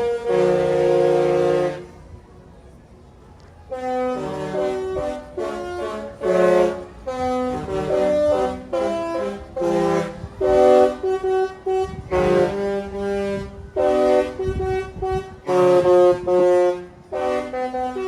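A Disney cruise ship's musical horn playing a tune: loud, chord-like blasts that change pitch note by note, with a short pause about two seconds in.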